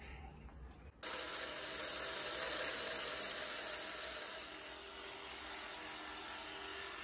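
Variable-speed belt grinder turned down to a low speed, its abrasive belt sanding a wooden knife handle: a steady hiss of grit on wood that starts abruptly about a second in, then eases off about halfway through and carries on more quietly. The low speed keeps the wood from overheating and burning.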